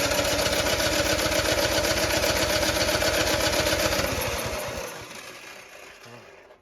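Snowblower engine being turned over by its electric starter, a rapid even chugging with a starter whine, without catching; the cranking slows and dies away about five seconds in. The engine is flooded with fuel and not firing.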